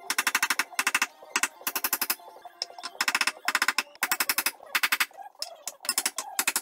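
Steel strut mount on a Mini Cooper R53's strut tower being hammered flat, the mount badly mushroomed. The metal blows ring and come fast, about ten a second, in short runs broken by brief pauses.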